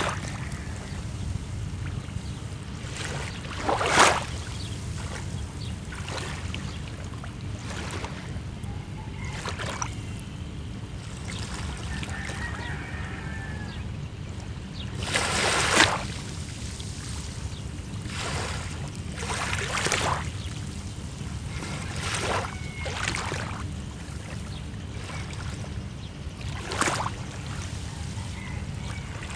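Small sea waves breaking and splashing on the shore every few seconds, over a steady low rumble of surf; the splashes about four seconds in and near the middle are the loudest.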